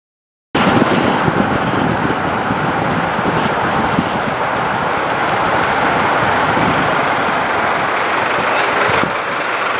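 Steady road and traffic noise from inside a moving car, starting about half a second in.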